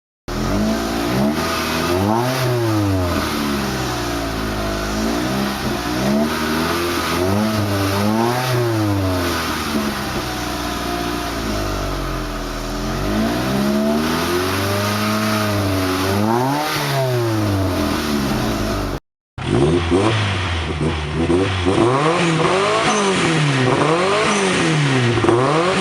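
A sports car engine revved several times while stationary, its pitch climbing and falling back with each blip. After a brief cut about two-thirds of the way in, a second car's engine is blipped in quick, sharp revs about once a second.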